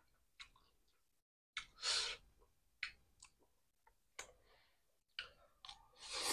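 Quiet close-up eating sounds: scattered soft clicks of chewing and chopsticks, a breath about two seconds in, and a louder slurp of pancit noodles near the end.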